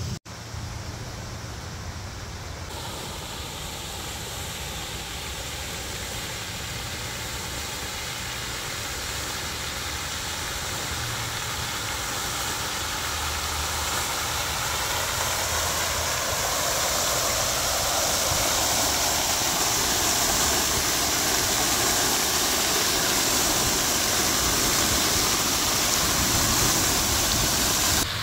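Water fountain jets spraying and splashing into a wide round basin: a steady rushing hiss that grows gradually louder, over a low rumble.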